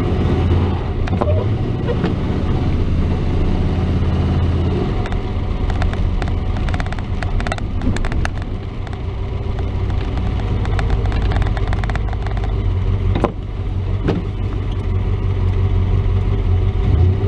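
Chevrolet S10 pickup under way: a steady engine drone and road noise heard from inside the cab. Scattered light clicks run through it, with one sharp knock late on.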